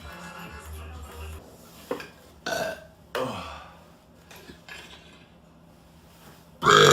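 A man burping on command: two short burps about two and a half and three seconds in, then a much louder, longer burp starting near the end.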